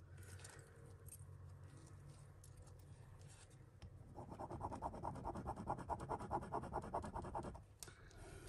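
Metal jewellery rubbed quickly back and forth on a black touchstone to leave a streak for acid testing: a rapid scratchy rasping from about four seconds in until just before the end, with only faint scratching before it.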